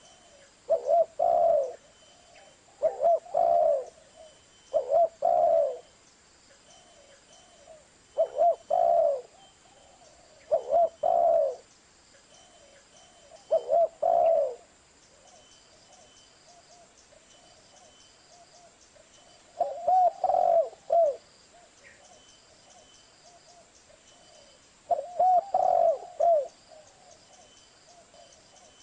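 Spotted dove (Streptopelia chinensis) cooing: short phrases of a few low coos, repeated about every two to three seconds, with a longer pause midway.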